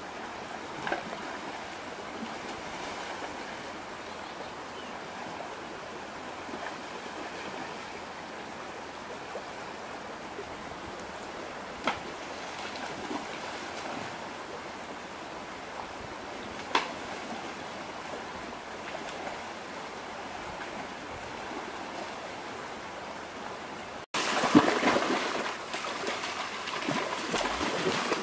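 Shallow rocky stream flowing steadily, with a few brief sharp clicks. About four seconds before the end it turns to louder, uneven splashing as people wade and grab about in the water.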